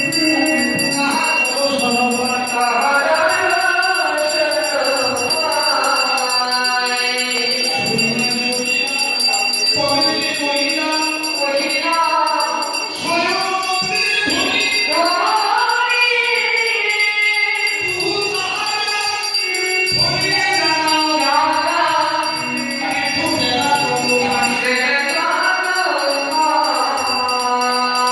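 Devotional music: voices singing together over instrumental accompaniment, with jingling percussion running through it.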